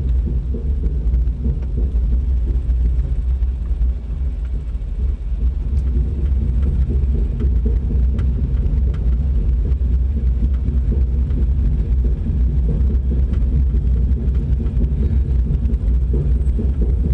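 Steady low rumble with faint scattered ticks, heard from inside a glider's closed cockpit on the runway.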